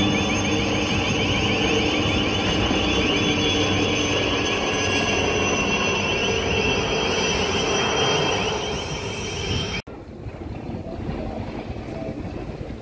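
A steady engine drone with a high whine, running loud for about ten seconds. It then cuts off suddenly to quieter wind on the microphone and water.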